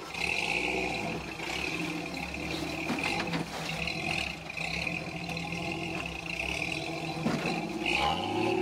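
Toyota FJ40 Land Cruiser engine running at low revs as the truck crawls over granite boulders, with the revs rising near the end.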